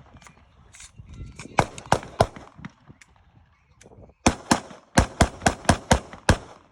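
Gunshots: three spaced shots in the first couple of seconds, then a fast string of about eight shots at roughly four a second near the end as a magazine is emptied.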